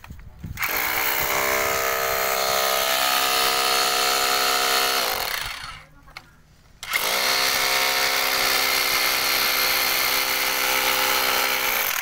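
Electric rotary hammer drill boring into a brick wall at full speed. It winds down about five and a half seconds in, stops for about a second, then spins up again and runs on.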